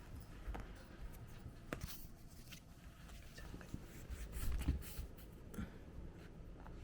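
Scattered scratching, light taps and soft low thumps of kittens scrambling and playing on the floor, busiest about four and a half seconds in.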